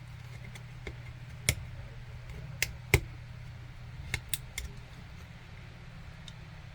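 About six sharp clicks and taps of small parts and tools being handled during a power bank repair, the loudest about three seconds in, over a steady low hum.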